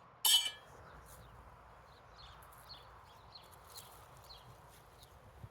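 A single sharp metallic clank, like a garden tool striking, just after the start. It is followed by short, high chirps repeating about twice a second over faint outdoor background noise.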